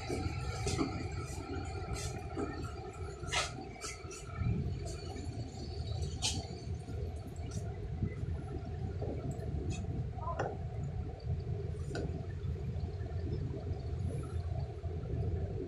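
Steady low rumble of a roll-on/roll-off ferry's engines underway, with a faint hum and a few scattered light clicks.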